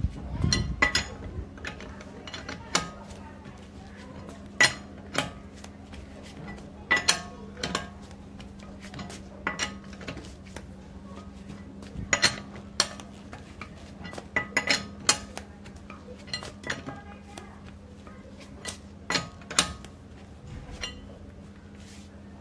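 Irregular sharp metal clinks and taps of a steel L-shaped lug wrench being fitted onto wheel nuts and turned, tightening a car wheel back on.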